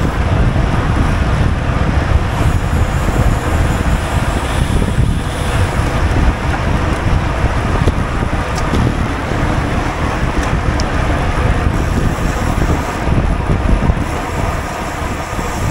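Wind buffeting a GoPro's microphone on a moving racing bicycle: a loud, steady rumble.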